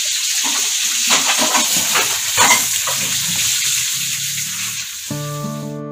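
Kitchen tap running steadily as leafy greens are rinsed under it in the sink, with a few light knocks. Acoustic guitar music comes in near the end and the water sound stops.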